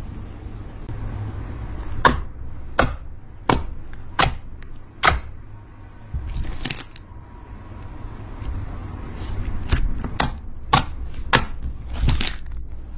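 Gold glitter slime being poked and squeezed by hand, giving sharp popping clicks as air pockets burst. About five pops come roughly every 0.7 s, then another run of pops near the end.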